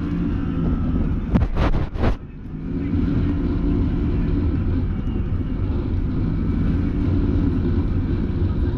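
Can-Am Maverick Sport XMR side-by-side engine running under way, with three or four sharp knocks about a second and a half in and a short dip in engine note just after.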